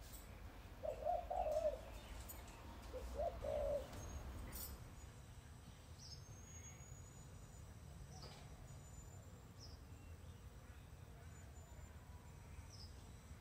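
Pigeon cooing, two short phrases about two seconds apart. Faint, brief high bird chirps follow now and then over a steady low outdoor rumble.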